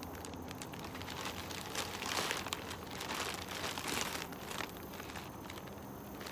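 Plastic shipping bags crinkling irregularly as they are handled and opened, loudest in the middle stretch.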